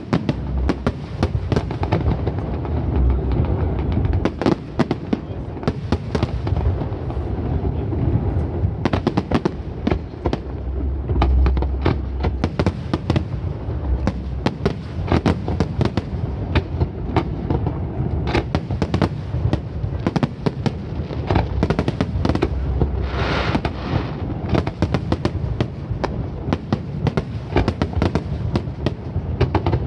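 Aerial fireworks display: shells bursting in a continuous barrage, dense crackling and popping over a steady rumble of deep booms.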